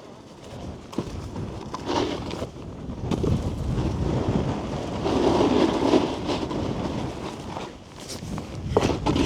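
Snowboard riding down packed snow: the board's base and edges scrape and chatter, and wind rushes over the helmet microphone, growing louder as speed builds. Near the end there is a brief lull, then a hard thump of the board landing.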